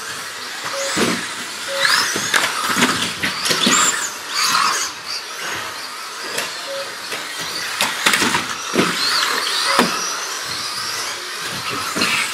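Electric 2WD RC buggies racing, their motors whining and rising and falling in pitch as they speed up and slow down through the corners.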